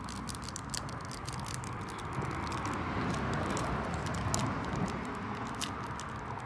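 Small paper packet being handled and folded in the fingers, crackling with many quick small clicks over a steady background hiss.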